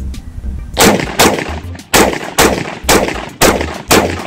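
Rapid semi-automatic fire from a CSA VZ58 rifle in 7.62×39: seven sharp shots about half a second apart, starting about a second in.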